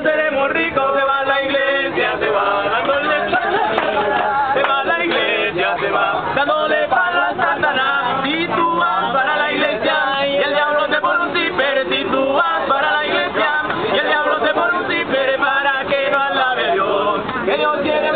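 A group of young men singing loudly together without any instruments, a chant of many voices that keeps going without a break.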